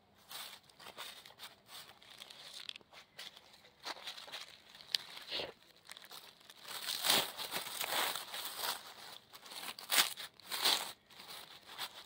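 Dry pine needles and fallen leaves crackling and rustling as a hand brushes the forest litter aside around a young mushroom, in irregular bursts that grow louder and busier in the second half.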